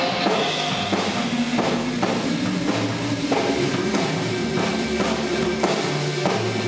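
Live rock instrumental from a drum kit and electric guitar: the drums keep a steady beat under sustained guitar notes.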